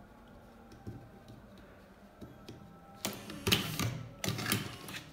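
The electric motor of a Prof Matic T3 cigarette-rolling machine (a Top-O-Matic lever roller fitted with a motor) running a filling cycle. It makes two loud bursts of mechanical noise about three seconds in, with a short break between them. Before that there are only faint ticks of tobacco and the tube being handled.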